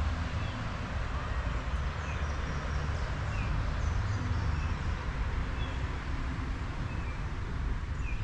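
Steady outdoor river ambience: a low rumble like wind buffeting the microphone over the rushing of moving water. Small birds chirp briefly every second or so.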